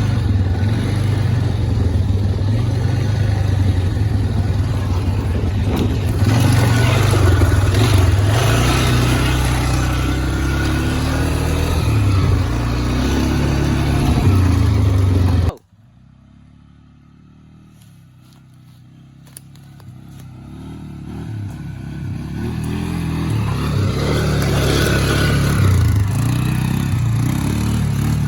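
Four-wheeler (ATV) engine running while riding, with a broad rush of noise over it. The sound drops away abruptly about halfway through, then the engine builds back up to full loudness over several seconds.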